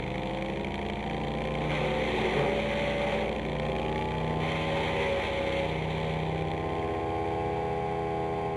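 Wood chipper's 20 hp Honda V-twin engine running, its speed rising and falling a little.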